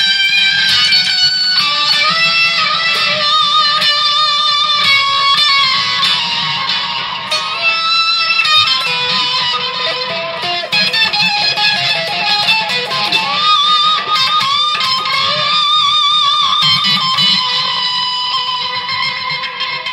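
Ear-splitting acid rock electric guitar solo: held, bent notes with wide wavering vibrato and fast runs between them, played without a break.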